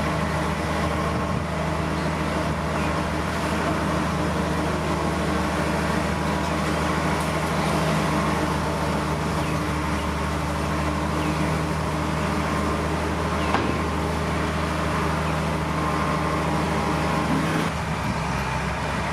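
Heavy diesel earthmoving machinery running steadily, a bulldozer or dump truck engine, with a single sharp clank about two-thirds of the way through and a shift in the engine note near the end.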